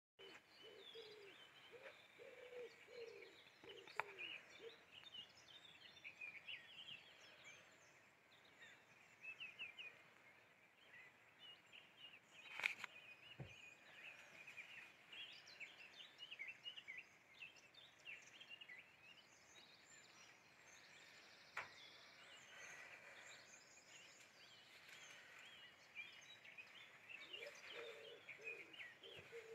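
Faint outdoor birdsong: many small birds chirping, with low cooing calls near the start and again near the end. Three sharp clicks break in, the loudest about halfway.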